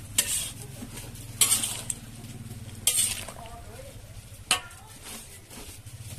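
Cooking in a pan: a utensil scraping and knocking against it in four sharp strokes about a second and a half apart, over a low steady hum.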